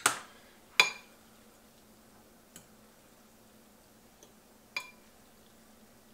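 A few sharp clinks against a ceramic plate as ramen noodles are stirred: two loud ones at the start, under a second apart, then a couple of faint ticks and one more ringing clink near five seconds in.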